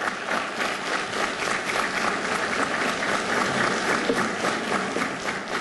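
Audience applauding: many people clapping at once, a dense and steady patter of claps.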